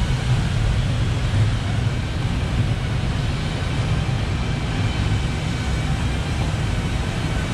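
Steady low rumble of factory-floor background noise, with no distinct events.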